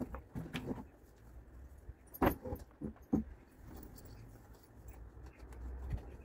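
Leather pony driving harness being handled and settled onto the pony's back, its buckles and metal fittings clinking and jingling in a few short bursts, the loudest about two seconds in.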